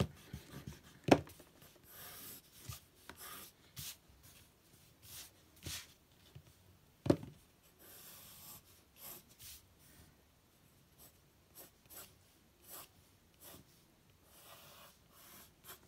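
Graphite pencil scratching on drawing paper in short, light sketching strokes, with two sharp knocks, one about a second in and one about seven seconds in.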